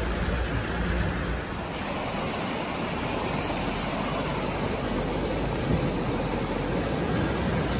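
Rushing, splashing river water mixed with a pickup truck's engine running as a Toyota Hilux fords a shallow, rocky stream, its wheels churning through the current.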